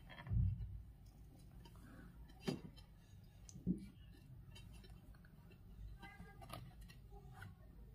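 Quiet handling sounds of macrame cord being worked around a mirror in its ring frame: a soft thump about half a second in, two light sharp clicks a little over a second apart, and faint rustling and ticks.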